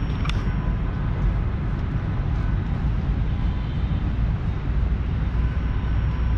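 Outdoor city ambience: a steady low rumble with no single sound standing out.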